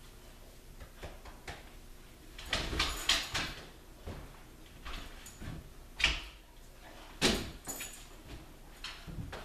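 Scattered knocks, scuffs and clicks of a large dog getting up and shifting about on a hard floor. They come thickest for about a second, from two and a half seconds in, with single sharp knocks around six and seven seconds in.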